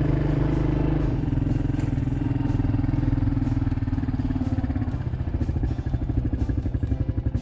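Vehicle engine running steadily. About five seconds in its sound turns into a rapid, even throb.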